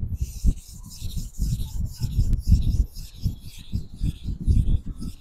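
Nakiri kitchen knife blade being pushed and drawn along a King 1000-grit whetstone, a rhythmic rasping scrape of steel on stone at about two strokes a second, polishing out scratches and bringing out the cladding line.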